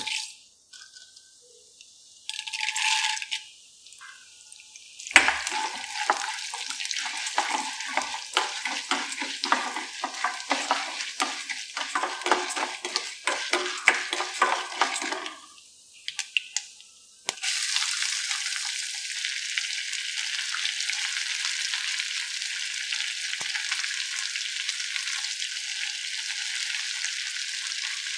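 Dal poured from a spoon into hot oil in a stainless steel kadai, then a spoon stirring the frying mustard seeds and dal, with rapid scrapes and clinks against the pan. About two-thirds of the way in this gives way to a steady sizzle of frying, as chopped onion, green chilli and ginger cook in the oil.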